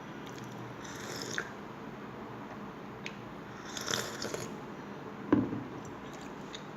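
Close-miked eating: biting and chewing momos in a few short bursts, about a second in and around four seconds in, with one sharper, louder knock a little after five seconds.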